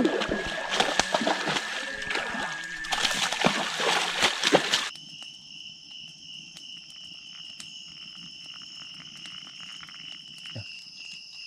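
Stream water splashing and sloshing for about five seconds. Then, after an abrupt cut, a quieter steady high whine with faint ticks, and one short thump near the end.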